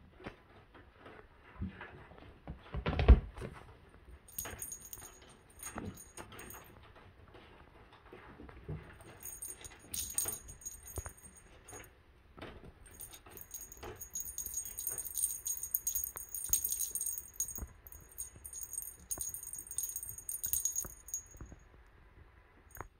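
Small jingle bell on a feather wand cat toy jingling in repeated bursts as the toy is shaken, with scattered soft knocks and rustles of handling. One loud thump about three seconds in.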